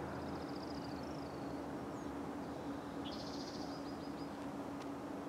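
A small songbird sings two short, high trilled songs, one near the start and one in the middle. The second opens with a quick rising note. Both are heard over a steady background hiss and a low hum.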